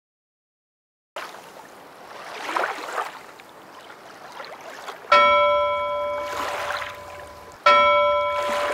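Waves washing in surges that swell and fade, with a bell struck twice, about five seconds in and again some two and a half seconds later, each strike ringing on and slowly dying away.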